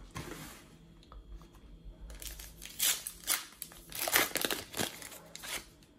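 Wrapper of a Panini Adrenalyn XL trading card packet being torn open and crinkled by hand: quiet at first, then a run of irregular crackling rustles from about two seconds in.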